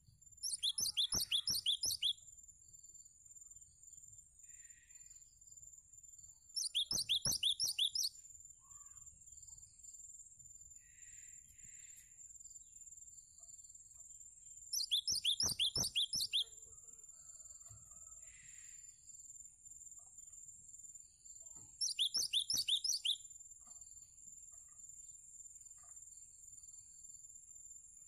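Cinereous tit (gelatik batu) singing: four fast runs of repeated sharp, high notes, each about a second and a half long and several seconds apart, over a steady high-pitched buzz.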